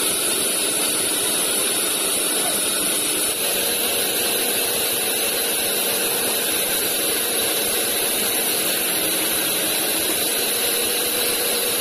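A large log band-saw mill running steadily as its blade saws lengthwise through a big log on the carriage, with a constant high whine over the machine noise.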